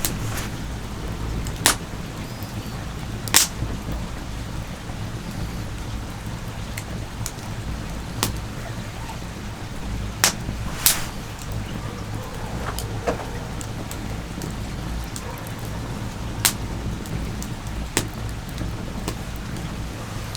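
Wood campfire crackling, with sharp pops at irregular moments over a steady low rumble.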